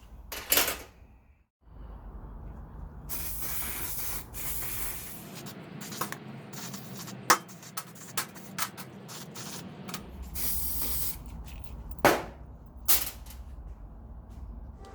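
Workshop handling sounds: stretches of hiss broken by many sharp clicks and knocks, with a brief dropout about a second and a half in.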